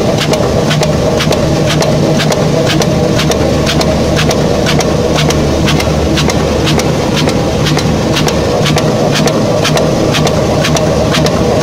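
A tablet-handling machine running with a steady hum and a sharp, regular click about three times a second.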